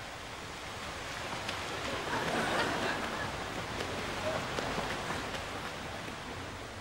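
Water splashing as a swimmer strokes through a pool, busiest from about two to five seconds in, over a steady hiss.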